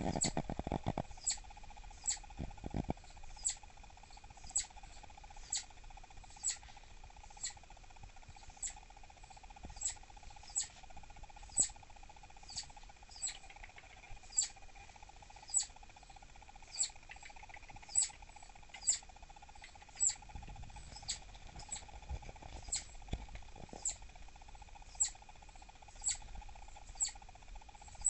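Southern flying squirrel giving its irritated call: short high-pitched chirps repeated about once a second, slightly unevenly.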